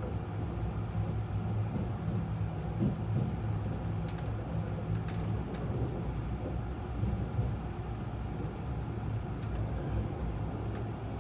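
Interior running noise of a 683 series electric train heard from inside the passenger car: a low rumble with a steady low hum that fades out about halfway through, and a few light clicks. This is the train slowing on its final approach into the terminus.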